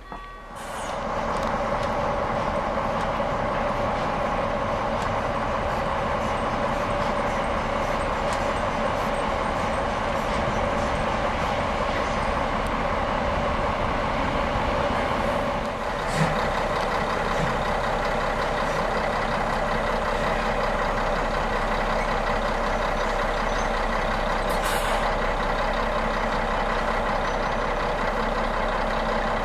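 Steam locomotive venting steam: a loud, steady hiss with a ringing tone in it, starting abruptly right at the start.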